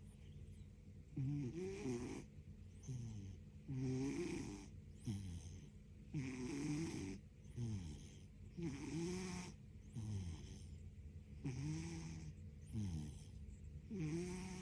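Domestic cat snoring: short nasal snores with a wavering, whistling pitch, repeating about every second and a half.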